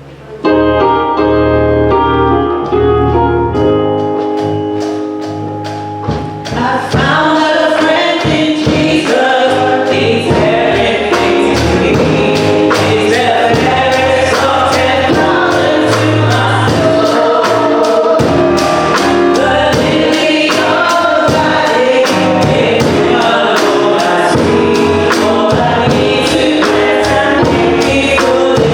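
Gospel music: a choir singing. It opens on held chords, and about six seconds in a steady beat comes in under the singing.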